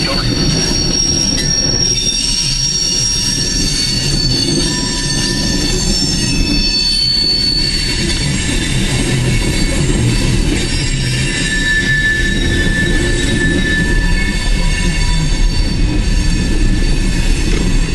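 A freight train of coal cars rolling past with a steady low rumble. The wheels squeal in thin, high-pitched tones that come and go.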